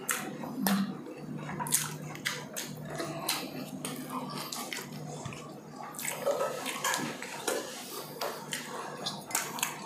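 Close-up eating sounds: chewing and mouth smacking, made up of many short, sharp, irregular clicks.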